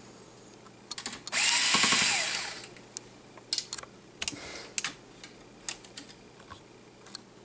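Electric screwdriver motor whirring once for about a second and a half, backing out one of the two screws that hold the tablet's hard drive in. It is followed by scattered light clicks and taps.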